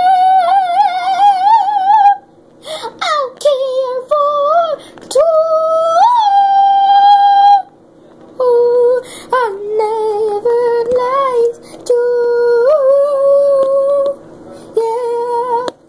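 A girl singing in a high voice, holding long notes with a wobbling pitch and sliding between them, with a few short breaks.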